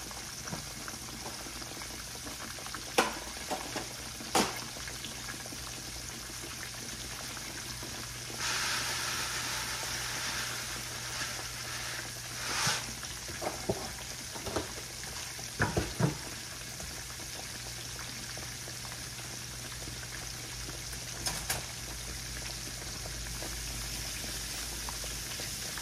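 Shake 'n Bake–coated pork chops frying in hot oil in a skillet, a steady sizzle, with a few sharp knocks of utensils. About a third of the way in, a louder rustling rush for a few seconds as dry rice is poured from its box into a saucepan.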